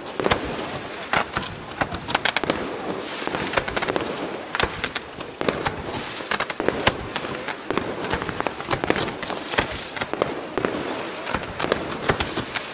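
Fireworks display: aerial shells bursting and comets launching, many sharp bangs in quick succession over a continuous rushing noise.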